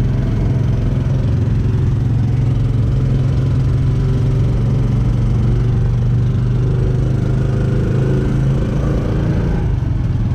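Motor tricycle's engine running steadily under way, a loud low hum. A few seconds past the middle, a higher engine tone comes in, rises and fades.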